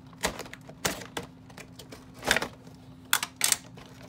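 Doll packaging being handled as the cardboard-backed insert is slid out of its window box: a series of short, irregular scrapes and knocks of cardboard and plastic, about six in four seconds.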